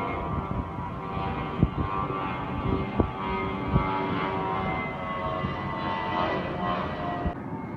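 Airliner passing overhead on its approach: steady engine noise with a whine of several tones, the highest drifting slowly lower as it goes by. A few short thumps sound on the microphone.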